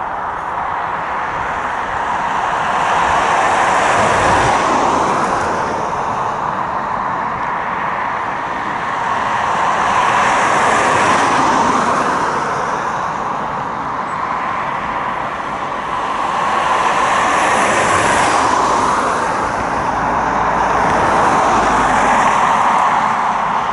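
Boeing 757 jet engines running as the airliner rolls slowly along the taxiway, a steady rushing hiss that swells and eases several times.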